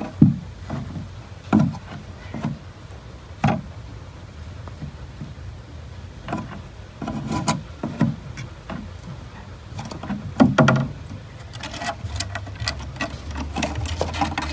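Irregular soft thumps, scuffs and rubbing against cardboard as tiny kittens scramble about in a towel-lined cardboard box right at the microphone, a few knocks louder than the rest.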